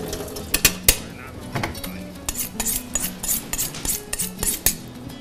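Metal kitchen utensils clinking against pans and dishes in a run of sharp clinks, the two loudest within the first second, then about two to three a second, with faint background music underneath.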